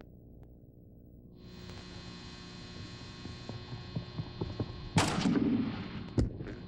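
A gymnast's running footsteps on the vault runway, coming faster, then a loud bang of the feet on the springboard about five seconds in and a sharp smack of the hands striking the vaulting horse about a second later. A steady hum runs underneath.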